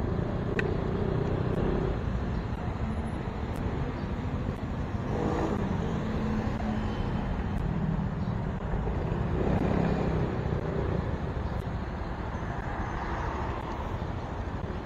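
Street traffic: a steady rumble of vehicles on the road, swelling as vehicles pass about five seconds in and again around ten seconds.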